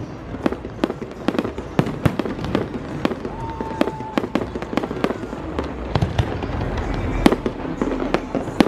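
Fireworks display with aerial shells bursting in quick, irregular succession, about two to three sharp bangs a second over a continuous low rumble, one of the loudest about seven seconds in.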